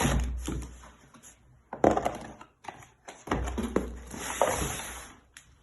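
Packaging rustling and parts knocking as the contents of an engine repair kit are handled, in several short bouts with brief pauses between.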